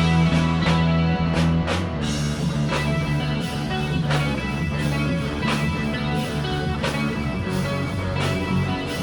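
Rock band music with guitar, bass and drums, no vocals: an instrumental passage with a steady beat, hits about every seven-tenths of a second.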